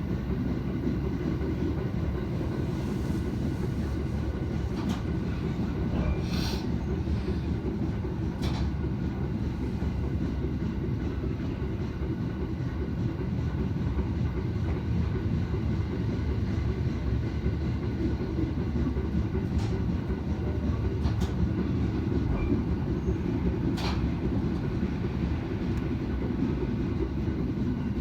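A train running slowly at a wind-restricted speed of about 25 km/h, with a steady low rumble and a few sharp clicks.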